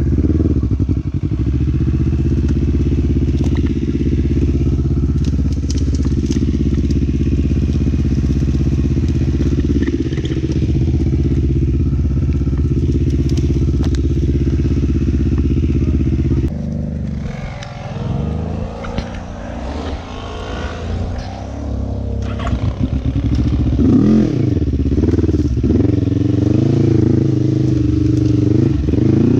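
Quad bike (ATV) engine running at a steady speed for the first half, then revving up and down with changing throttle from about halfway on.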